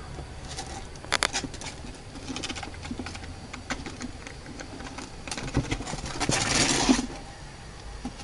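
Kittens' claws scrabbling and scratching on a plastic tabletop, with scattered taps and knocks, and a louder scraping rush about six seconds in as they scramble down.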